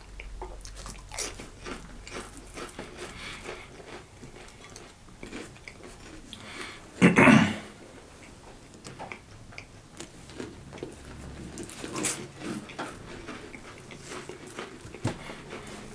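Dry saltine crackers being bitten and chewed, a run of small crisp crunches, with one louder, longer sound about seven seconds in.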